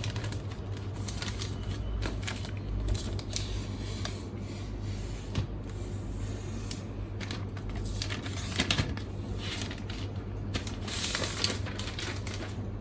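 Thin plastic protective film being peeled off a new MacBook Pro 16-inch laptop: irregular crackling and rustling, over a steady low hum.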